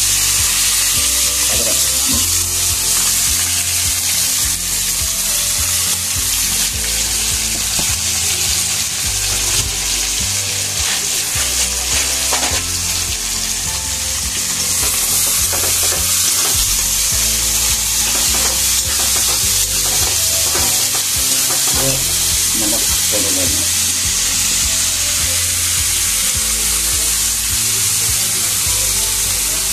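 Sliced onions and garlic sizzling steadily in hot oil in a metal kadhai, with a steel spatula scraping and stirring them in short repeated strokes.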